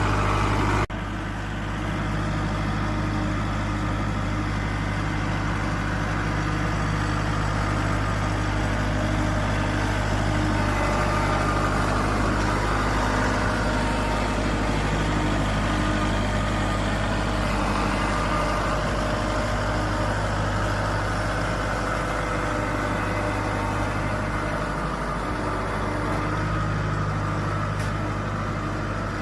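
Heavy equipment's diesel engine running steadily, a continuous low drone with several steady tones over a mid-range mechanical rumble. The level steps down abruptly about a second in.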